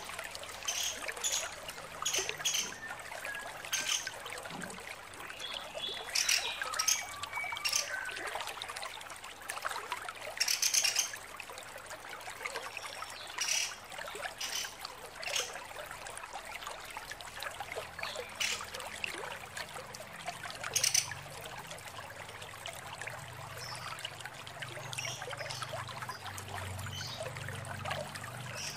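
Female pelatuk sampit woodpecker giving short, sharp calls at irregular intervals, some run together into quick chattering bursts, over a steady trickling hiss.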